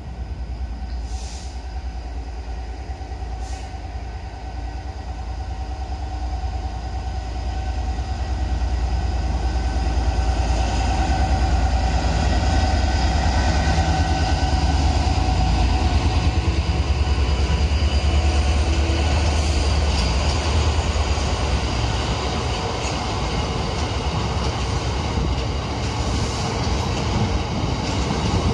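Class 66 diesel-electric freight locomotive, with its two-stroke V12 EMD engine, approaching and passing at the head of a train of box wagons. Its engine sound builds to its loudest about ten to eighteen seconds in, then the wagons roll past steadily.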